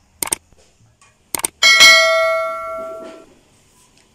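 Subscribe-button animation sound effect: two quick double mouse clicks, then a bell ding that rings and fades away over about a second and a half.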